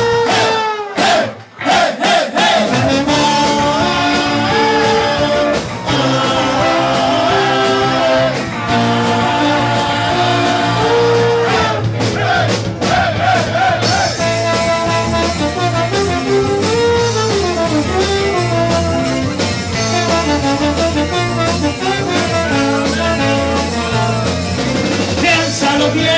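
Live band music: trombone over electric guitars and bass. A brief stop about a second in, then the whole band comes back in.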